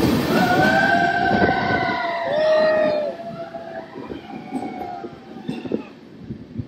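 Indian Railways express train running loudly on the track while its locomotive horn sounds for about two and a half seconds, starting about half a second in. The running noise drops sharply about three seconds in.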